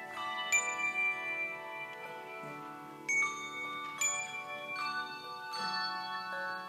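Handbell choir playing: chords of hand bells struck together every half second to a second and left ringing, so the tones overlap and sustain.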